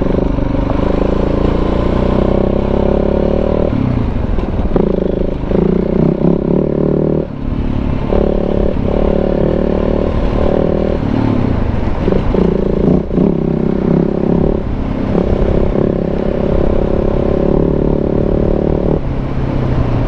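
Big-bore KTM 690 single-cylinder motorcycle engine running under way on a dirt trail. The throttle is worked on and off, so the engine note drops out briefly and picks up again every second or two, with some clatter and rumble from the ride underneath.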